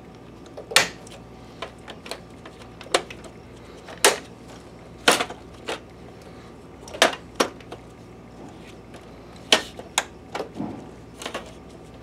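Projector's plastic side vent grille being pushed and snapped back into its housing: an irregular series of sharp plastic clicks and knocks, about a dozen, the loudest near the start, around four to five seconds in, and around nine to ten seconds in.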